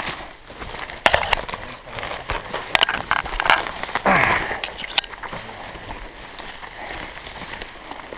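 Footsteps and brush crackling through dry leaf litter and undergrowth, with twigs snapping and branches scraping in a run of sharp cracks. About four seconds in there is a brief falling voice-like sound.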